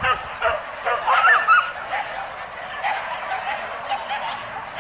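Several pig-hunting dogs barking and yelping in short repeated calls, with a higher, wavering yelp about a second in.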